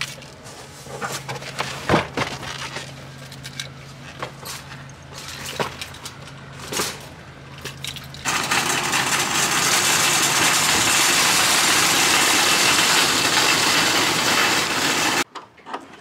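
Scattered knocks and scrapes of a large cardboard box being handled, over a low steady hum. About eight seconds in, a loud, steady rushing noise takes over and cuts off abruptly near the end.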